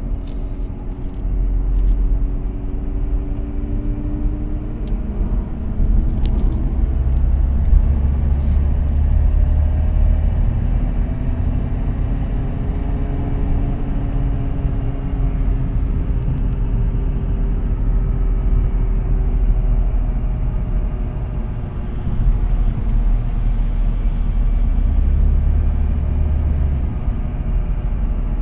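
Audi A4 B8 Avant on the move: a steady low rumble of road and tyre noise with a droning hum that slowly rises and falls in pitch, the noise of a broken wheel bearing.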